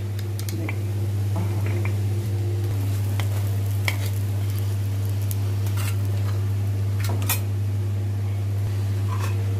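Scattered metal clinks and knocks as cast-iron stovetop sandwich toasters are handled and toasted sandwiches are set onto a steel plate, over a steady low hum.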